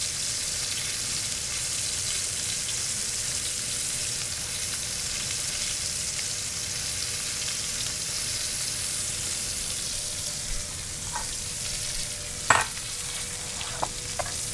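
Two New York strip steaks sizzling steadily in a stainless steel skillet over high heat. A few light clicks and one sharp knock come near the end.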